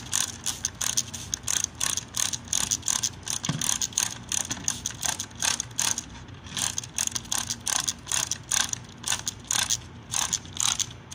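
Hand trigger spray bottle pumped rapidly over and over, each squeeze a short click and hiss of mist, about three a second, spraying water onto seedlings. There is a brief pause about six seconds in.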